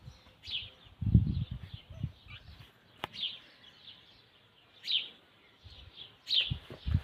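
Birds chirping: short, falling chirps repeated every second or two. Low rumbling bursts come and go about a second in and near the end, and there is a single sharp click about three seconds in.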